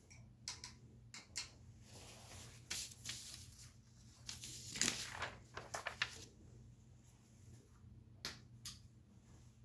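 Faint handling sounds of painting with a small brush: a few short taps and two brief stretches of rustling, over a low steady hum.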